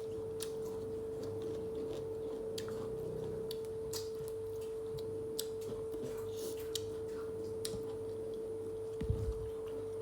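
Small clicks and smacks of someone eating chicken, scattered over a steady unchanging hum at one pitch. A couple of soft low thumps come near the end.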